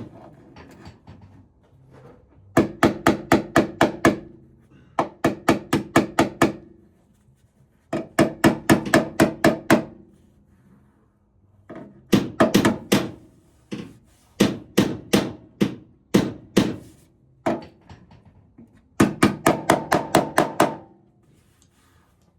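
Hammer striking car body sheet metal in about seven bursts of quick blows, roughly four or five a second, each blow with a short ringing note. This is panel work, knocking a dent back out and smoothing the metal.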